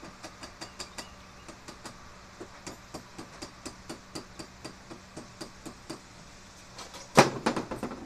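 Welder's chipping hammer tapping slag off a fresh weld, about four light metal taps a second, then a short burst of harder, louder strikes and scraping near the end.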